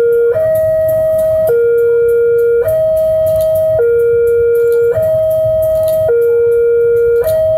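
Railway level-crossing warning alarm sounding, an electronic two-tone signal alternating steadily between a higher and a lower note about every second: the crossing is closed for an approaching train.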